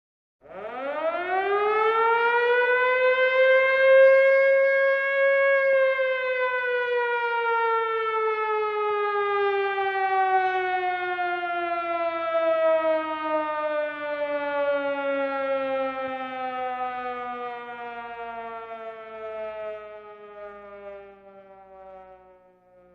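Civil defense siren sounding one long wail: the pitch rises for about five seconds, then slowly falls and fades away as it winds down.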